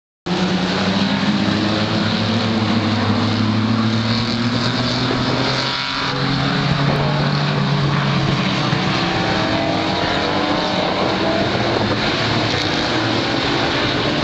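Several Super Banger race cars, with big engines that are usually 3-litre, running hard around an oval track together. It is a loud, steady din of overlapping engines, their pitch rising and falling as the cars accelerate and pass.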